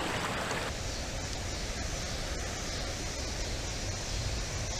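Steady rush of a shallow creek running over rocks. It drops off abruptly under a second in, leaving a lower, steady rumble.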